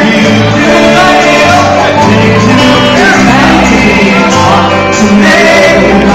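Loud live band music: a man and a woman singing into microphones over electric guitar, bass guitar and a drum kit.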